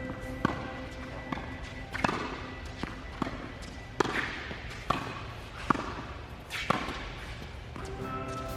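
Tennis ball being hit and bouncing in a practice rally: a string of sharp pops roughly once a second, over background music with sustained notes.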